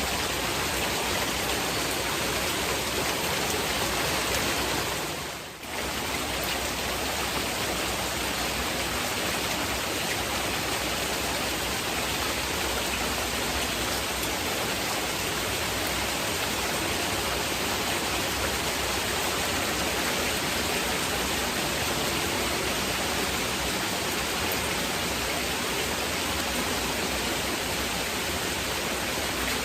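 Heavy rain blended with even masking noise, giving a dense, steady hiss. About five seconds in it dips briefly and swells back.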